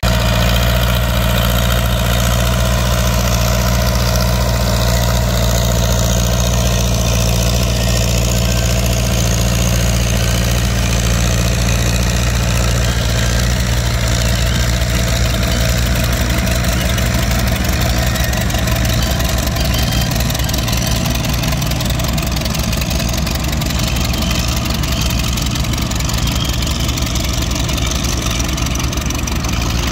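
Antique farm tractor engine running steadily at a constant speed, with no change in pitch.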